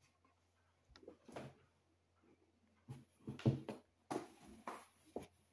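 Clothes and packaging being handled, rustling in several short bursts, loudest about three seconds in.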